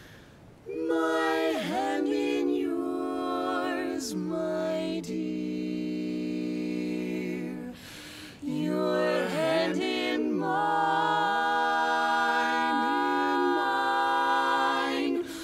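Barbershop quartet singing a cappella in close four-part harmony, holding long sustained chords. The voices come in about a second in, pause briefly near eight seconds, then go on into the next phrase.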